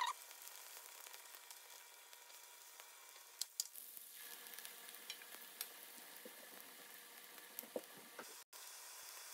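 Potato dumplings frying in oil in a nonstick pan: a faint, steady sizzle with scattered small pops and crackles.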